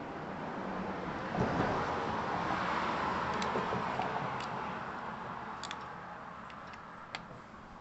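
A vehicle passing by: a rushing noise that swells, peaks a few seconds in and fades away, with a few faint clicks.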